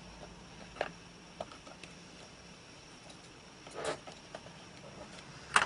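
Small clicks and light scraping of a SODIMM laptop memory module being worked into its slot inside a 2010 Mac Mini, with a brief rustle a little under four seconds in and a sharper click near the end.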